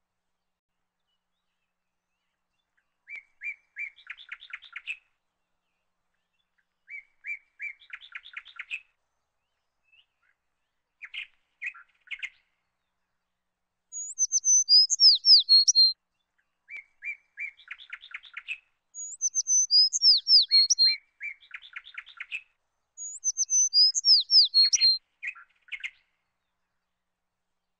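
House sparrows chirping in short runs of quick chirps every few seconds. From about halfway, another bird sings three times, louder and higher: a phrase of quick whistled notes that fall in pitch.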